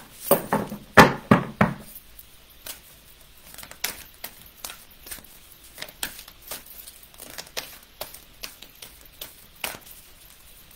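A deck of oracle cards being shuffled by hand: a string of soft flicks and taps, about two a second, louder and busier in the first couple of seconds.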